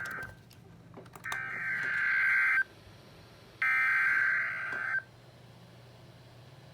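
NOAA Weather Radio Emergency Alert System (SAME) digital data bursts: a harsh, buzzing screech sent in bursts of just over a second with about a second of pause between them. The first burst ends just after the start and two more follow. These bursts are the coded header of an alert.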